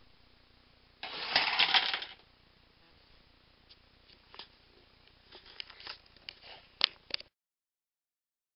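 1/64 scale die-cast toy tractor and pulling sled on a board track: a rattling, clattering burst of about a second, then scattered light clicks and taps of small metal parts, with two sharper clicks near the end before the sound cuts off.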